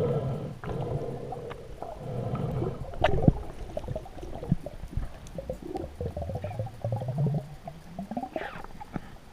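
Gurgling water with irregular knocks and clicks, a sharp knock about three seconds in, and one rising glide near the end.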